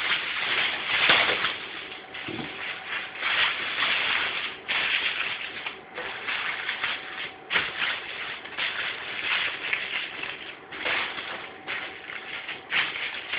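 Irregular rustling and crinkling handling noises in uneven bursts, with a few sharp clicks.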